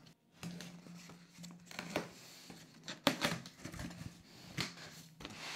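Cardboard box packaging being handled as it is opened: soft rustling and a few light knocks of cardboard, with a cloth bag being gripped.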